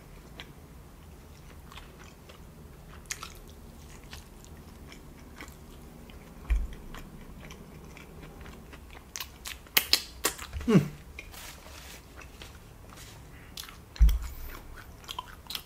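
Close-miked chewing of a breaded chicken nugget smothered in cheese sauce and chili: soft, wet mouth clicks and smacks scattered throughout, bunching into a run of louder smacks about two-thirds through and again near the end.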